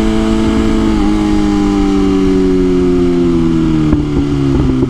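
BMW S1000RR M Package's inline-four engine running at high revs under way, its pitch slowly sinking as the throttle eases. A few sharp pops or clicks come near the end, over wind rush.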